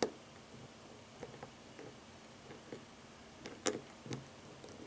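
Scattered light clicks and taps of a lock pick and tension wrench working in a wafer lock, with a sharper click about three and a half seconds in.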